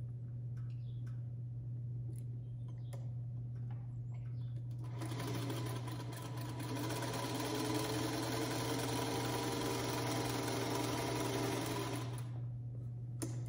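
Small black vintage sewing machine running steadily for about seven seconds as it stitches a quarter-inch seam through fabric strips, then stopping abruptly. A few soft clicks from handling the fabric come before it starts.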